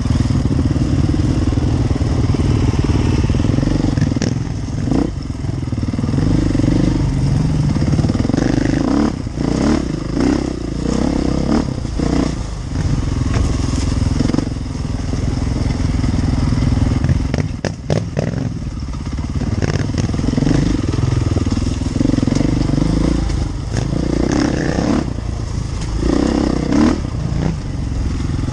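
Off-road motorcycle engine running and revving up and down as the bike is ridden along a dirt trail, with scattered sharp knocks from the bike over rough ground.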